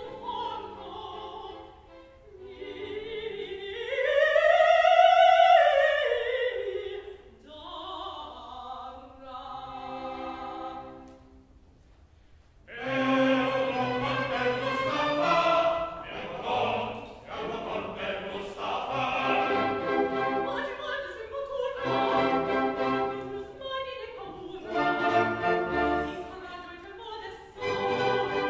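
A female opera singer sings with orchestra, in long phrases that swell on a high held note about four seconds in. After a brief lull about halfway through, a chorus and the full orchestra come in with a denser sound.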